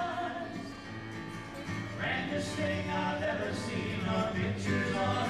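Background music: a song with singing over steady instrumental backing.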